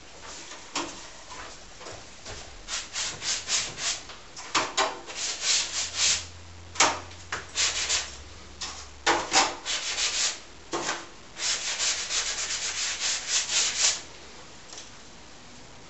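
Quick scratchy rubbing strokes of a small hand-held block worked over the surface of a large acrylic-painted canvas, coming in fast runs and stopping about two seconds before the end.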